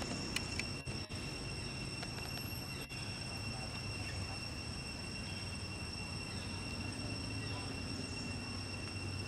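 Steady forest ambience: a constant high-pitched insect drone over an even low rumble, with a couple of faint clicks about half a second in.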